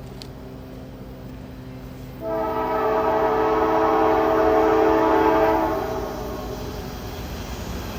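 Nathan K5LA five-chime locomotive air horn sounding one long, steady chord of about three and a half seconds, starting about two seconds in. A locomotive hum runs underneath.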